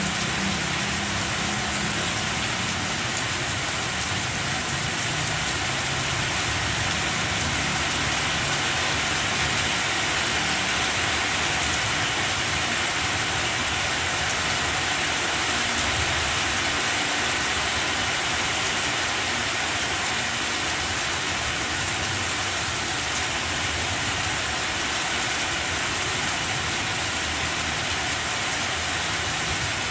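Steady heavy rain pouring down on banana plants, a constant even hiss. A low hum sits underneath in the first few seconds.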